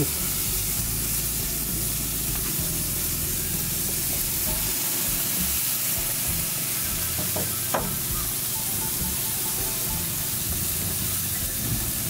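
Steaks sizzling on a hot gas grill as they sear: a steady hiss, with one sharp click about eight seconds in.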